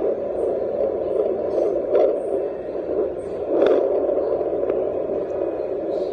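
Loudspeaker output of a JPD-100E home fetal doppler: a steady whooshing static, swelling with a faint click about two seconds in and again a little before four seconds.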